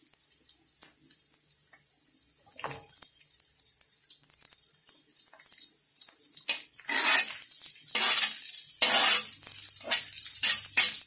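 Onions and bell peppers sizzling in a hot copper-plated sauté pan, a steady high hiss. Snap peas and shredded red cabbage go in, and from about seven seconds in a spatula stirs and scrapes them in a run of louder rustling strokes with small clicks.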